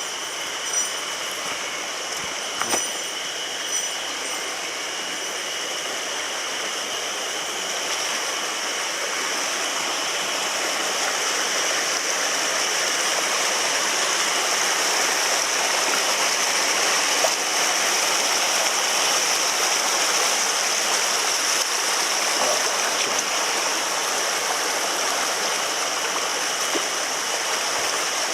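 Rushing water of a mountain stream, a steady rush that grows gradually louder over the first half, with a few light knocks in the first few seconds.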